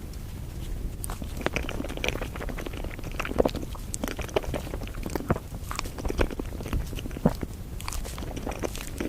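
A person eating on a close microphone: chewing and biting food, with many small irregular clicks and crunches starting about a second in.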